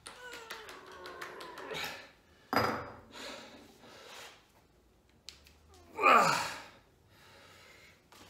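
A man grunting and groaning with effort while wrenching a walnut dowel back and forth to break it free of a drill adapter. A sudden sharp knock comes about two and a half seconds in, and a loud groan falling in pitch about six seconds in.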